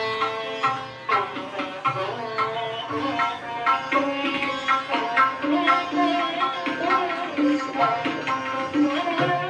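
Indian classical instrumental music played from a 78 rpm record on a Garrard turntable: a plucked string melody with notes that bend in pitch, over repeated hand-drum strokes.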